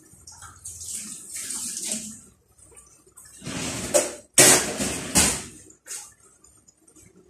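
A pan of chicken and potatoes boiling in broth under a glass lid: the water bubbles and hisses in uneven surges. Two louder surges come a little past the middle.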